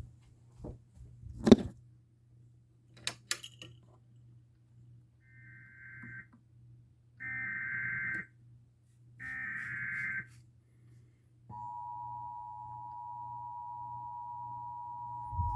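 An Emergency Alert System header: three separate bursts of warbling data tones, about a second each, then the steady two-tone EAS attention signal starting a little before the end. A few sharp clicks come before the bursts, over a low hum.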